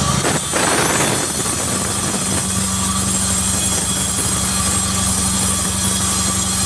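Sawmill machinery running with a steady, loud mechanical hum, with a brief burst of harsher noise about half a second in.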